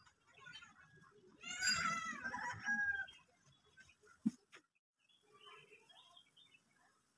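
A chicken calling once for about a second and a half, the loudest sound here, with a sharp click about four seconds in and faint bird chirps after it.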